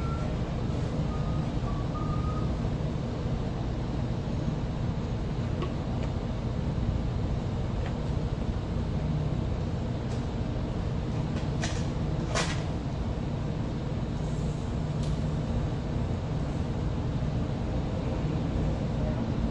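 A steady low rumble like a running vehicle, with a few short sharp clicks a little past the middle.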